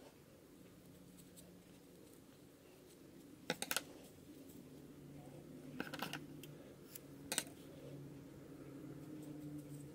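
Hands handling a yarn pompom craft piece on paper: soft rustling and a few brief crackles, about three and a half, six and seven and a half seconds in, over a faint low hum.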